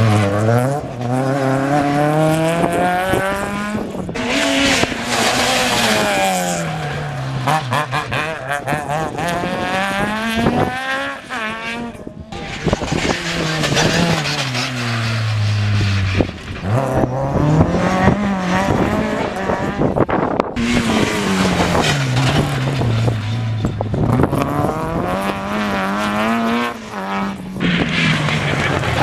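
Rally cars, Mk2 Ford Escorts among them, taking a hairpin one after another. Each engine's pitch drops as it slows for the bend, then climbs again in stepped rises as it accelerates hard through the gears, about four times over.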